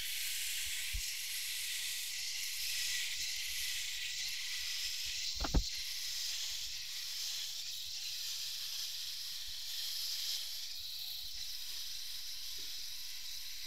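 Homeasy LK2800 multi-head rotary electric head shaver running over the scalp, a steady high hiss of its blades cutting through about a week's growth of hair. One sharp click about five and a half seconds in.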